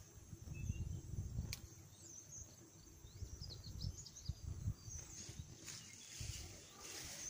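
Faint outdoor ambience of small birds chirping in short, high, quick notes. Low rumbling bumps of wind or handling on the handheld microphone come and go, and there is one sharp tick about a second and a half in.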